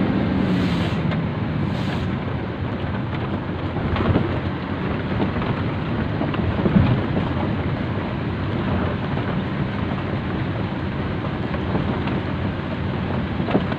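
Self-loader truck in motion: a steady, dense rumble of engine and road noise mixed with wind on the microphone, with a few light knocks.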